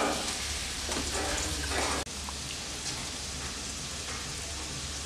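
A hand squeezing and kneading wet grated coconut in a steel bowl of water, squelching and dripping as the coconut milk is pressed out. The squelching comes in bursts for about two seconds, breaks off suddenly, and is followed by a steadier hiss.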